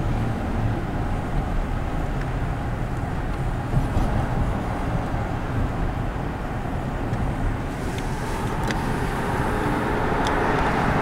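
Steady road and engine noise of a moving car heard from inside its cabin, swelling a little near the end.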